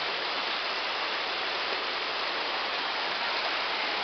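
Steady hiss of rain falling and floodwater rushing across a flooded street.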